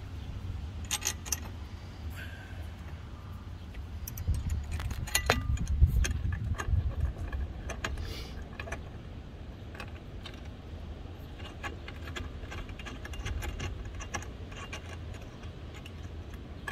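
Scattered metallic clinks, taps and knocks of a dash-mounting bar, its hardware and hand tools being handled during fitting, busiest about four to seven seconds in, over low bumps of handling.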